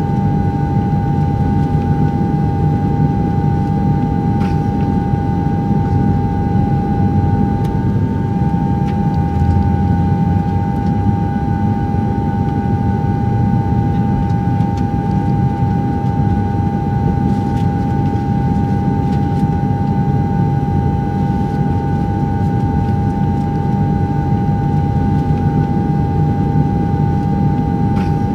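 DJI Phantom 2 quadcopter's four brushless motors and propellers whirring steadily in flight, recorded close up by the camera mounted on it: a constant high hum over a low rumble.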